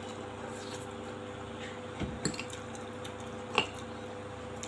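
A metal fork working noodles on a glass plate, with two soft knocks about two seconds in and a sharp clink of fork on glass about three and a half seconds in. A steady low hum runs underneath.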